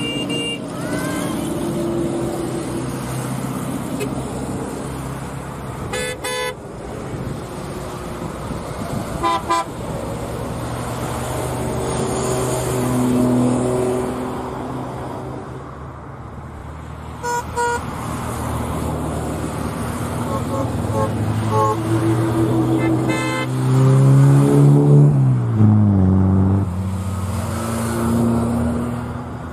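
Old Comecon-era cars running, with several short horn toots. Near the end one engine grows loud and its pitch falls.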